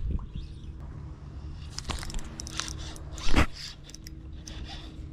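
Crackling, clicking handling noise on a handheld camera's microphone, with one loud thump a little past three seconds in, over a steady low hum.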